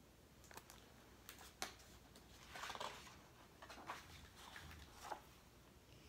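Faint paper rustling and a few soft clicks and taps as a hardcover picture book is handled and its page turned, over quiet room tone.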